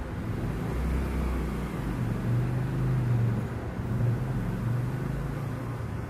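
A low, steady motor rumble that swells a little in the middle.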